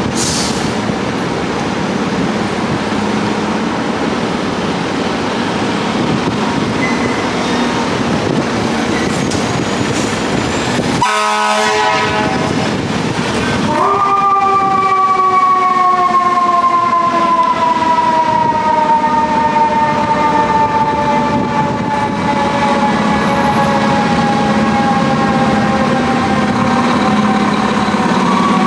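Fire apparatus diesel engines running, then a single blast of the air horn about eleven seconds in. A few seconds later an EQ2B mechanical siren spins up quickly and coasts down in a long, slowly falling wail, and it is wound up again at the very end.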